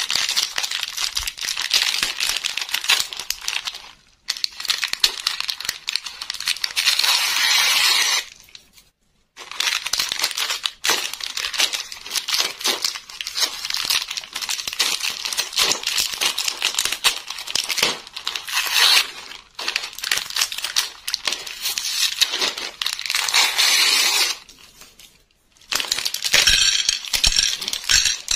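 Paper label and clear plastic blister of a Misket bubble gum strip pack crinkling and tearing as it is peeled and handled, in long stretches broken by short pauses. Near the end, a few hard knocks as gumballs drop into the bowl.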